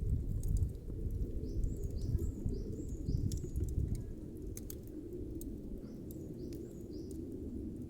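A small bird chirping in short repeated calls over a low, steady outdoor rumble, with scattered sharp clicks.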